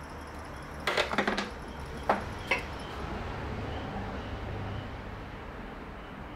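Electric pottery wheel running with a low steady hum while a small thrown clay pot is being cut off the hump. A quick cluster of sharp clicks about a second in and two more single clicks a second or so later, from the hands and tools at the wheel.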